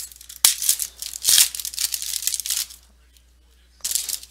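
A foil baseball card pack wrapper being torn open and crinkled. There are a few rasping bursts with a couple of sharp snaps, a short pause, and another brief crinkle near the end.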